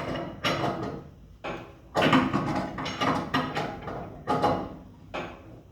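Repeated turning strokes on the nut and threaded rod of a homemade coil-spring compressor: metal scraping and grating in about half a dozen short bursts with pauses between. The compressor is letting out a car's front coil spring, and the tension is now mostly relieved.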